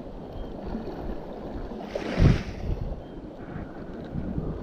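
Wind buffeting the microphone over the sea washing against the rocks, with a stronger gust about two seconds in.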